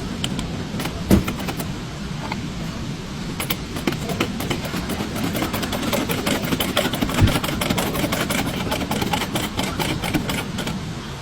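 Many light clicks and clinks, with two louder knocks, over a steady low hum.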